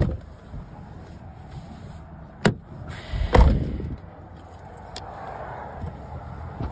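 A sharp click, then a heavier thump about a second later, over wind noise on the microphone.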